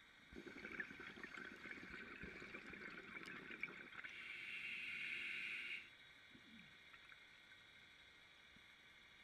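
Underwater water and bubble noise picked up by the camera: a crackly gurgling that builds into a steadier hiss and then cuts off suddenly about six seconds in.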